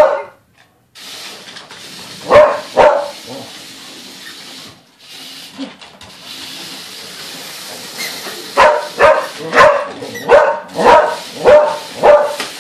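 Dog barking: two barks about two and a half seconds in, then a quick run of about eight barks, roughly two a second, over the last four seconds.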